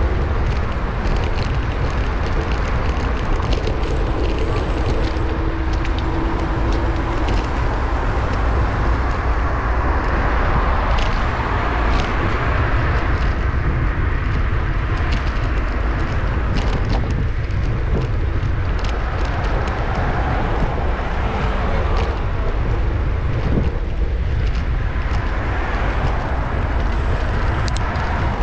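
Wind buffeting the microphone of a bicycle-mounted camera during a ride along a city road: a steady low rumble over traffic noise, with scattered sharp clicks and rattles.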